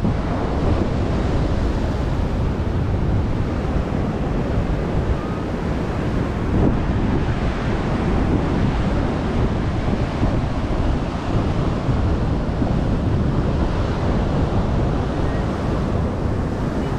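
Ocean waves breaking steadily, with wind rumbling on the microphone.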